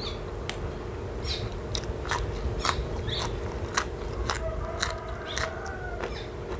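A person chewing crunchy food close to the microphone: sharp, irregular crunches, roughly two a second.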